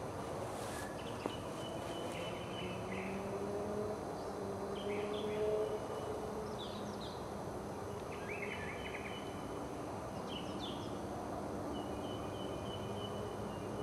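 Outdoor ambience: short bird chirps every couple of seconds over a steady low hum.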